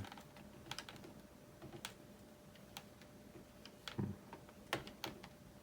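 Scattered light clicks and taps of small plastic parts being handled and fitted on an RC car transmitter, irregular and about one a second, over a faint steady hum.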